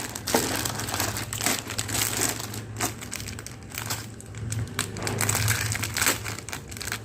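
Plastic jewellery packaging crinkling and rustling in irregular bursts as pieces are handled and unpacked, over a low steady hum.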